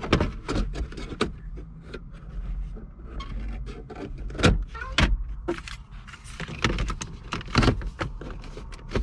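Plastic dashboard trim panels being handled and pressed back into place around the center console: an irregular run of clicks, taps and knocks, a few of them louder snaps.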